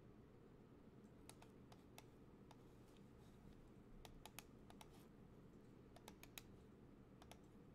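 Faint, irregular computer keyboard and mouse clicks over a low, steady room hum.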